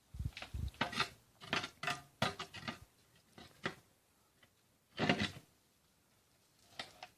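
Hand tools working stone: an irregular run of metal clinks and scrapes against rock and gravel, busiest in the first few seconds, with a longer scrape about five seconds in.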